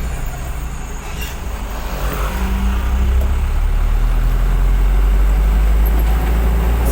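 Heavy diesel engine running with a deep, steady rumble, growing louder about two seconds in and then holding steady.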